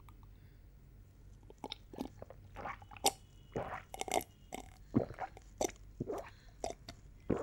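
A person drinking in gulps: a run of short wet swallowing sounds and mouth clicks, about two a second, starting about a second and a half in.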